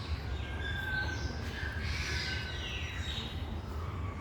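Birds chirping, short calls and falling whistles, over a steady low rumble.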